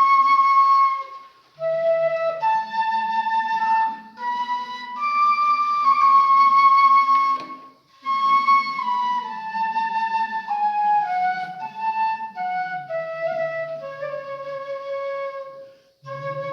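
Bansuri (Indian bamboo flute) playing a slow hymn melody in phrases, with short breaks for breath between them. The last long phrase steps steadily downward in pitch.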